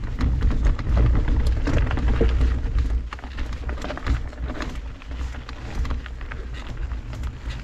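Mountain bike tyres crunching over a rocky dirt trail, with many small clicks and rattles from gravel and stones, under wind buffeting the microphone with a low rumble. Louder for the first three seconds, then somewhat quieter.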